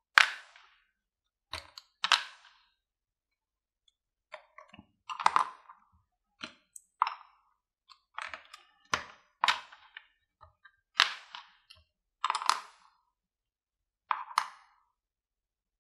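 Lego-type plastic bricks being unsnapped and pulled apart one after another, about a dozen sharp plastic clicks and snaps at irregular intervals. It is the brick frame being taken down from around a cured silicone mould.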